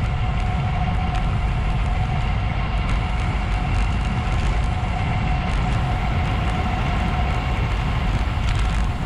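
Wind rushing over the camera microphone and tyre noise on asphalt as a road bike coasts downhill at about 45–50 km/h, with a steady whine over the rush.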